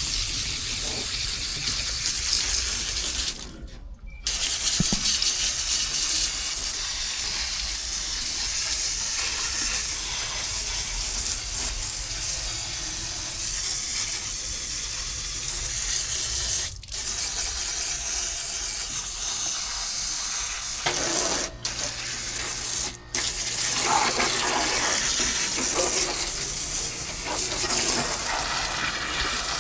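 Water spraying steadily from a hose, cutting off briefly a few times.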